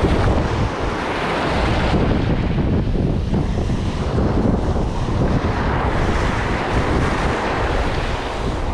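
Wind rumbling and gusting on the microphone over a steady rush of water.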